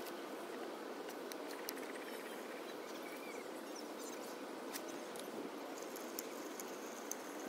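Steady lakeside ambience of wind and water lapping at the bank, with a few faint clicks and a brief bird chirp about three seconds in.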